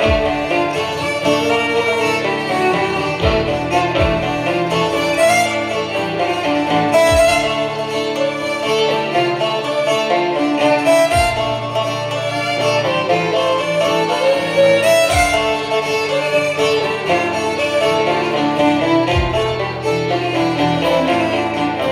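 Two fiddles and a banjo playing a lively fiddle tune together, with short low thumps at irregular spacing, usually a few seconds apart.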